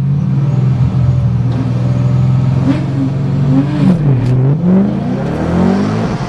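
Car engine heard from inside the cabin, holding a steady hum while staged at the start line, then dipping briefly and rising steadily in pitch as the car launches on the green light about four seconds in.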